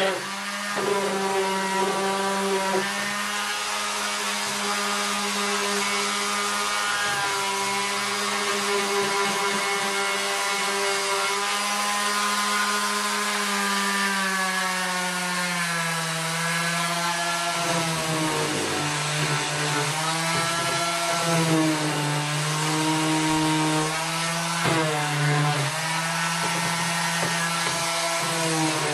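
Electric random orbital sander running against wood, a steady motor hum with sanding noise. In the second half its pitch dips and rises several times.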